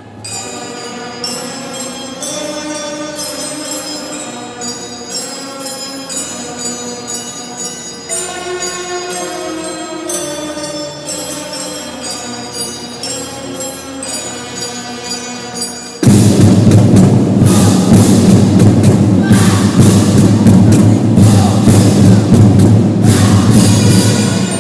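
School marching drum band playing a folk-song medley: a melodic passage of sustained, changing notes, then about sixteen seconds in the drums and full band come in together, much louder.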